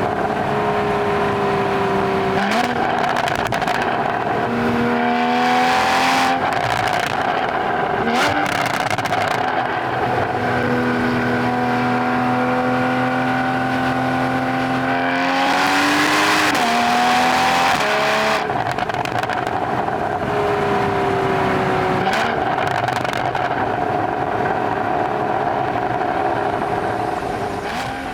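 Porsche 981 Boxster GTS's naturally aspirated 3.4-litre flat-six, driven hard. The engine and exhaust note rises with revs through the gears and drops at each of several gear changes, with a quick rise and fall of revs near the middle.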